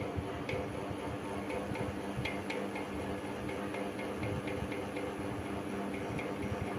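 Havells ceiling fan running with a steady low hum and a regular light ticking, about three ticks a second.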